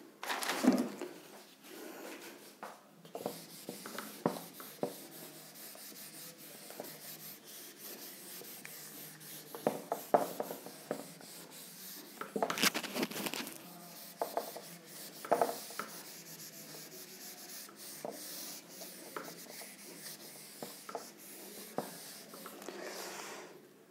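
A hand-held duster wiped over a whiteboard to erase it. It makes an irregular scratchy rubbing, with a few louder strokes along the way.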